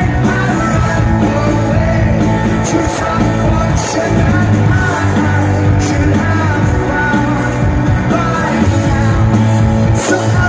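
Rock band playing live, with a sung lead vocal over the band and a steady bass line.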